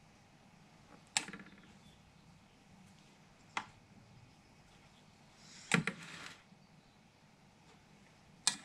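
A metal spoon clinking against a stainless steel bowl while scooping tomato sauce: four sharp taps a couple of seconds apart, the loudest followed by a brief scrape.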